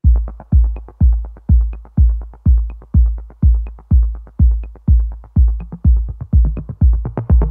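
Electronic dance music: a heavy kick drum on every beat, about two a second, with fast ticking hi-hats between the beats.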